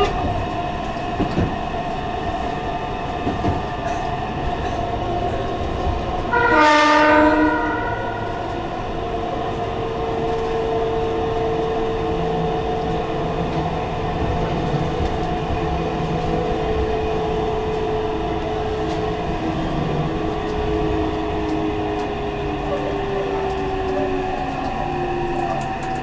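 Meitetsu electric train running, heard from inside the car: steady running noise with a motor whine. About six seconds in, the train's horn sounds once for about a second and a half. Afterwards a whine slowly falls in pitch.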